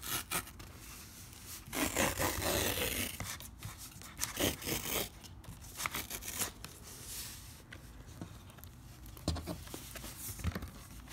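A paper envelope being torn open along its tear strip, with bursts of tearing and rustling paper and short scrapes as the photo inside is handled and slid out.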